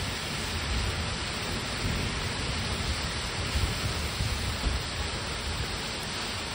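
Heavy rain from a hurricane's outer rain band pouring steadily onto a lawn and the leaves of a large tree: a dense, even hiss. An uneven low rumble runs underneath.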